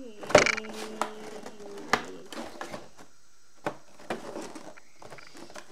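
Shoes and a cardboard shoebox being handled, with several sharp knocks and rustling as the shoes are pushed and shuffled into the box. The loudest knock comes near the start.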